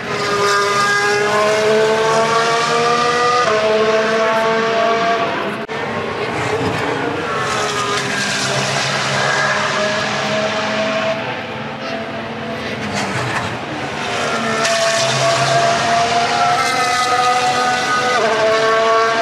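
Formula 1 cars' 1.6-litre turbocharged hybrid V6 engines accelerating past one after another. Each engine note climbs in pitch and drops back sharply at every upshift.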